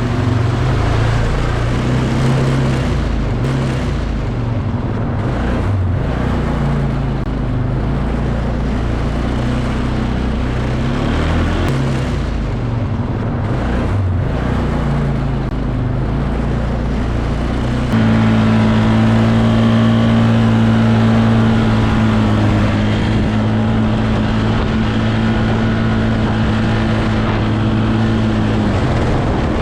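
Polaris ATV engine running, its pitch rising and falling with the throttle; about two-thirds of the way through it changes abruptly to a steadier, louder note.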